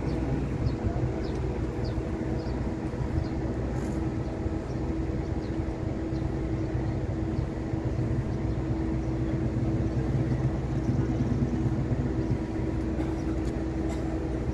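Moored cargo ship's machinery running with a steady low drone and a constant humming tone, heard from on board.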